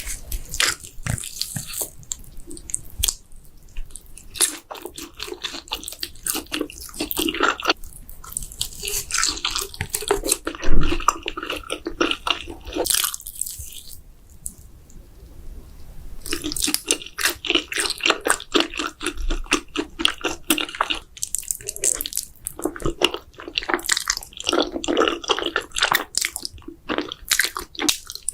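Close-miked mukbang eating sounds of spicy Buldak noodles and mozzarella sticks: rapid wet, sticky chewing and mouth smacks with crunchy bites. There is one loud bite about eleven seconds in and a quieter pause about halfway through.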